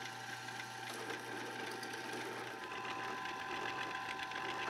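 Benchtop drill press running steadily, its bit drilling and then chamfering holes in a stainless steel Damascus knife tang. A low hum drops out about two and a half seconds in.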